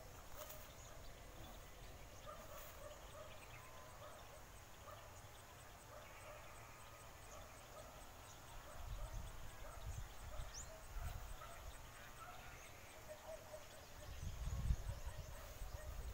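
Faint rural ambience: distant bird calls, with a fine, fast high ticking throughout. Low rumbles come about nine seconds in and again near the end.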